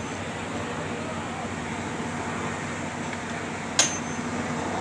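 Busy outdoor ambience: a steady murmur of distant voices over a low hum, with one sharp click near the end.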